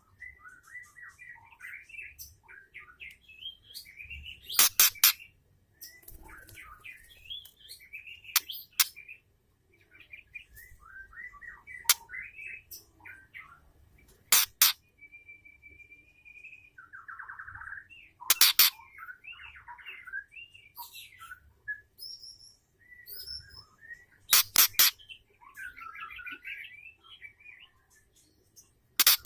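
Female white-rumped shama calling: varied chirps and short warbled phrases, broken every few seconds by loud, sharp clicks in short clusters.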